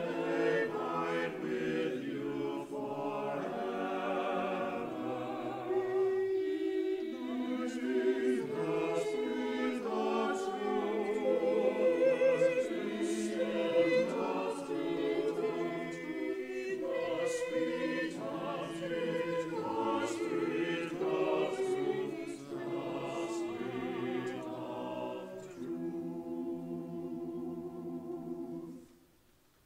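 Mixed church choir singing an anthem in parts, ending on a long held chord that is cut off cleanly about a second before the end.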